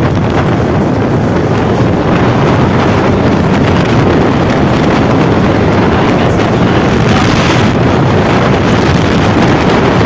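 Steady, loud wind rush on the microphone of a camera riding on a moving motorcycle, with the ride's engine and road noise blended into it.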